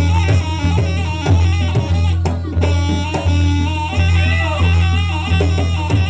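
Live jaranan campursari music: drums struck over a steady bass line, with a melody that slides and bends in pitch.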